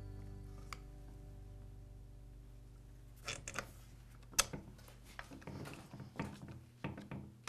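Scattered small clicks and taps of hard plastic and metal parts being handled and a screwdriver driving the screws that hold a trimmer's air filter base and carburetor to the engine, starting about three seconds in with one sharp click near the middle and more clicks toward the end. A guitar chord fades out at the start.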